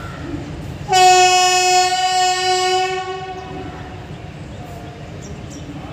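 Horn of an approaching Indian Railways locomotive, sounding one long, steady blast. It starts suddenly about a second in, lasts about two and a half seconds, then fades out.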